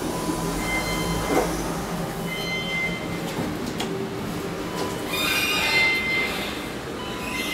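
A KONE Monospace machine-room-less traction elevator car travelling between floors, with a steady low hum through the ride. A high, squealing whine swells about five seconds in and fades just after six seconds.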